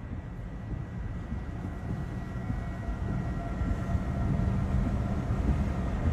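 Low, steady, train-like rumble of a tornado, growing slightly louder, with faint high steady tones above it.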